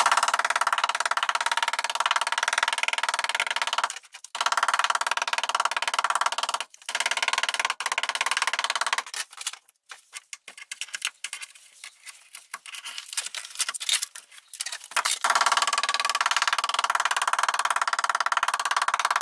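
Rapid, continuous tapping of the back of a ball peen hammer on bitumen sound-deadening stuck to a car's steel body panel, knocking it loose. The tapping stops briefly a few times and thins out for several seconds in the middle.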